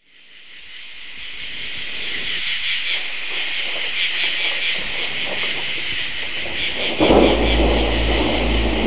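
Steady hiss of heavy rain with thunder, fading in from silence. About seven seconds in, a deep rumble breaks in and low sustained music tones begin under the rain.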